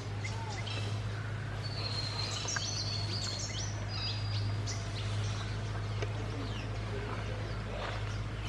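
Several birds chirping and whistling: short high chirps and rising and falling whistles keep coming throughout, over a steady low hum.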